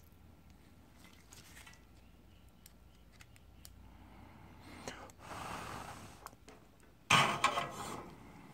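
A person blowing out hard through the mouth twice: a softer breath about five seconds in, then a much louder blast near the end. A few faint clicks come earlier.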